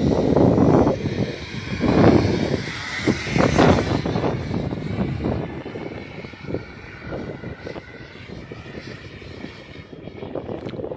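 Jet aircraft in flight, a high engine whine over an uneven rushing noise, loudest in the first few seconds and then fading as the plane draws away.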